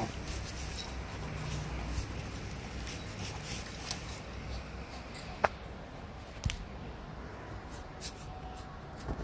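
Soft scratching and rustling as a small dog moves about inside a fabric pet play tunnel, with scattered sharp clicks, the loudest about halfway through and another a second later.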